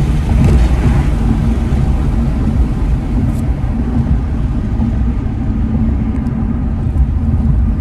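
Audi RS3's turbocharged five-cylinder engine, fitted with an Eventuri intake, heard from inside the cabin while driving: a steady low engine and road drone.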